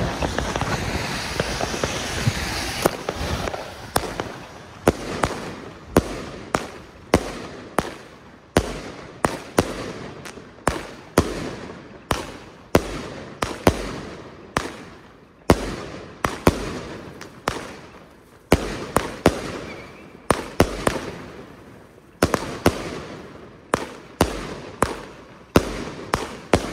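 A Bonfireworks Great Strobe 25-shot, 30 mm consumer firework battery firing. It opens with a few seconds of hissing, then comes a long string of sharp bangs and pops, roughly one or two a second, each trailing off briefly.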